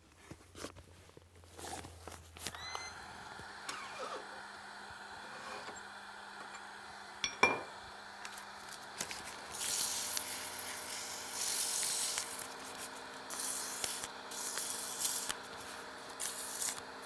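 Small wood lathe running with a steady motor hum, with a sharp click about seven seconds in. From about ten seconds in, 280-grit sandpaper hisses against the spinning walnut handle, swelling and fading as it is worked along the piece.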